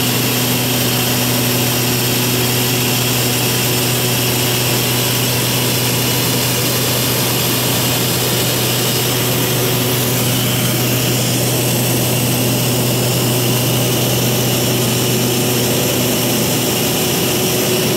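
Cabin noise of an Antonov An-38-100's twin Honeywell TPE331 turboprops climbing out after takeoff: a steady, loud low propeller hum with an even rushing noise over it.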